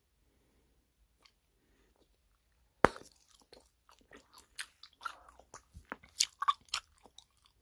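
Bubble gum being chewed: near quiet at first, then from about three seconds in an irregular run of short mouth clicks and smacks, two or three a second, the first click the loudest.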